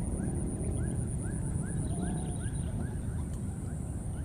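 Baby macaques giving short squeaky cries that rise and fall, about two or three a second, over a steady low rumble.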